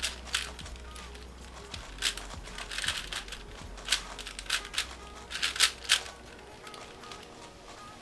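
Plastic speed cube being turned fast: irregular runs of clicking and clacking layer turns, with louder flurries about two, four and six seconds in.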